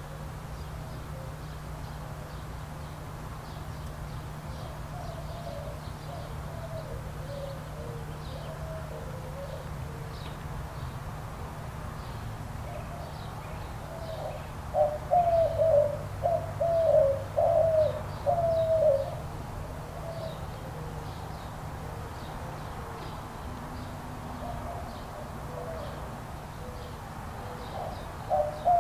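White-winged dove cooing: a loud rhythmic phrase of about six coos about halfway through, another phrase starting right at the end, and fainter coos in between. Faint high chirps from small birds and a steady low hum run underneath.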